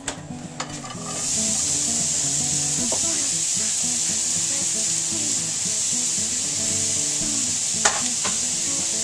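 Diced yellow onion tipped into a hot frying pan, starting to sizzle about a second in and then sizzling steadily. One sharp click near the end.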